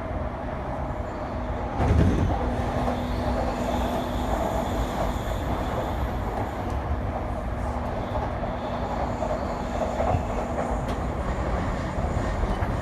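Yamanote Line commuter train heard from inside the carriage as it runs along the track: a steady rumble with a faint steady hum. There is a heavy thump about two seconds in and a couple of sharp clicks near the end.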